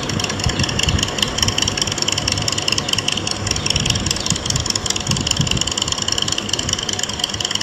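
Custom Harley-Davidson V-Rod's V-twin engine idling at a standstill, a steady uneven low pulsing.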